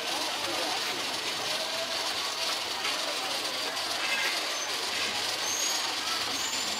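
Steady street background noise, an even hiss with faint voices mixed in.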